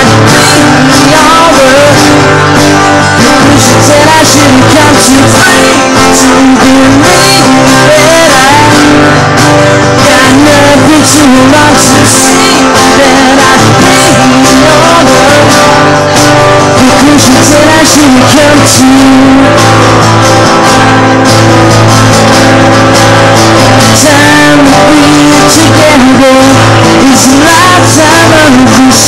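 Live performance of a guitar being played with a man's voice singing over it at times, very loud throughout.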